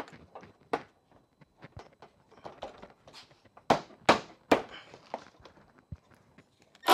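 Light plastic clicks and knocks as a Cadillac CTS's plastic front bumper cover is pressed into line against the fender and its grommets are popped into place; the sharpest few snaps come in a cluster a little past the middle. Right at the end a cordless power tool starts up.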